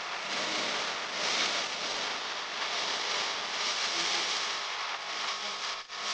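A steady, wavering hiss with no clear rhythm or tone, dropping out briefly near the end.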